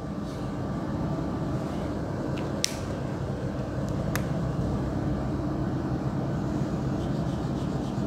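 Marker on a whiteboard as a circuit is drawn, giving two short sharp taps about a second and a half apart, over a steady background hum.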